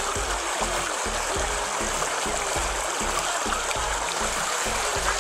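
Steady rush of running water, with background music and its regular beat underneath.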